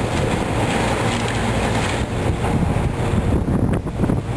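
Wind buffeting the microphone over a John Deere excavator working at building demolition, with a steady rumble of the machine and breaking masonry, and a sharper crash of falling concrete about three and a half seconds in.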